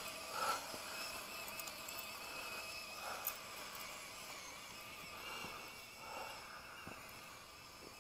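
Faint steady whine of a small RC rock crawler's electric motor and gears as it drives on snow tracks, with a dog sniffing and snorting at it in about four short bursts.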